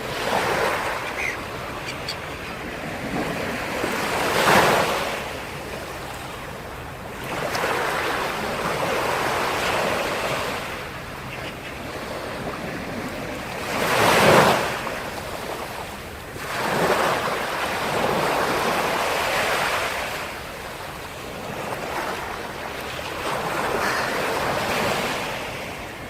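Black Sea waves breaking on the shore, a rushing surf that swells and falls back every few seconds, the two biggest breakers about four and a half and fourteen seconds in.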